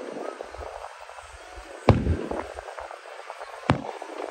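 Aerial fireworks shells bursting: two sharp bangs about two seconds apart, with scattered crackling between them.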